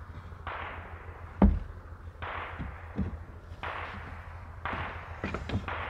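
Wooden knocks of 2x6 lumber being set down and shifted on a plywood/OSB deck, the loudest about a second and a half in and a quick cluster near the end, with scuffing and rustling in between.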